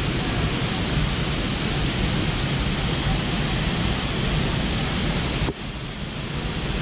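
Waterfall rushing: a steady, even rush of falling water that drops suddenly to a quieter level about five and a half seconds in.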